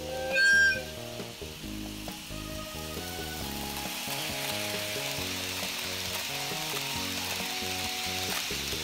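N-scale model train running along sectional track, its wheels and motor making a steady rolling hiss that swells as the sleeping cars pass close by, over background music. A short loud tone sounds about half a second in.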